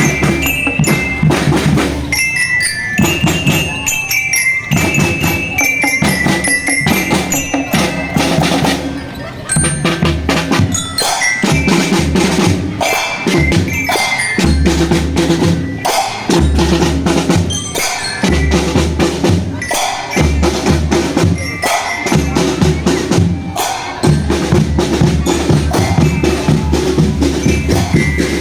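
Indonesian drumband playing: snare and bass drums beating a steady march rhythm under a glockenspiel (belira) melody. The bell melody is clearest in the first few seconds, and the drums carry the rest.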